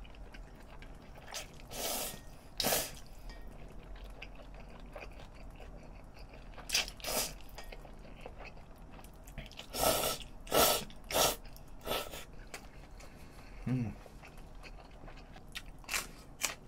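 A person slurping spicy cold bibim-myeon noodles off chopsticks: a series of short, sharp slurps in clusters, with quieter chewing between them.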